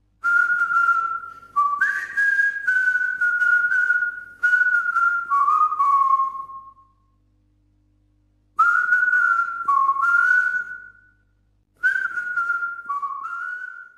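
A person whistling a simple melody in three phrases, the notes stepping up and down, with a pause of about a second and a half after the first phrase and a shorter one after the second.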